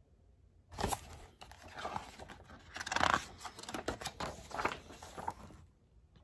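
Paper pages of a picture book rustling and flapping as a page is turned, beginning with a sharp flick about a second in and lasting several seconds.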